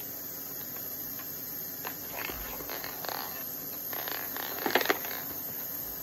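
Handling noise from a plastic golden-snitch maze ball turned in the hands: faint scattered ticks and scrapes, then two sharp plastic clicks close together a little before the end.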